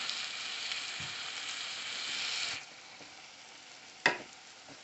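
Ground turkey and cherry tomatoes sizzling in a hot pan, an even hiss that cuts off sharply about two and a half seconds in. A single sharp knock follows near the end.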